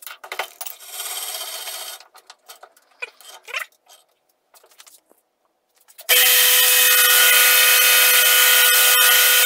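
Bench milling machine starting about six seconds in and running steadily: a loud whine with several steady tones over a hiss, its end mill set to take a light finishing skim off the top edge of a metal plate clamped in the vise. Before it, a short hiss and a few clicks and knocks.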